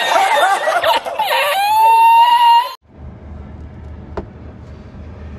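A man laughing hard in high-pitched, wavering peals, cut off abruptly about halfway through. After it comes a quieter low steady rumble with a single sharp click.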